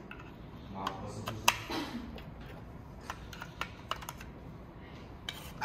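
Sharp plastic clicks and taps as cylindrical batteries are pressed into the spring contacts of a wireless video doorbell's battery compartment: about a dozen irregular clicks, the loudest about a second and a half in.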